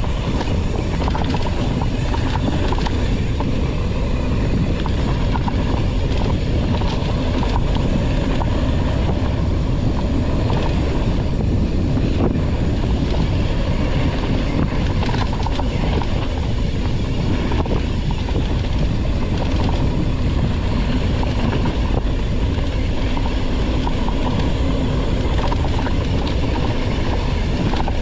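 Mountain bike descending a rough dirt trail at speed: a steady rush of wind and tyre noise, with constant rattling and clicking from the bike over rocks and bumps.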